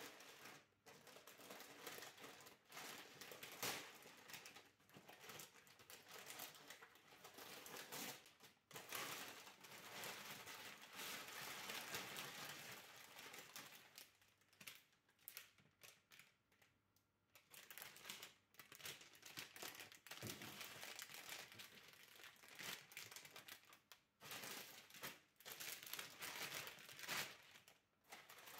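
Paper and clear cellophane flower wrapping rustling and crinkling as the bouquets are unwrapped and handled, in irregular spells with brief pauses.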